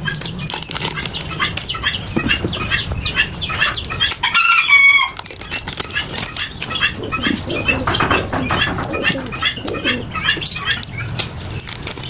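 Captive birds calling and flapping their wings, with short chirps throughout and a louder, wavering call about four seconds in, over scattered clicks and rattles.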